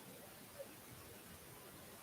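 Near silence: faint room tone, with one brief faint sound just over half a second in.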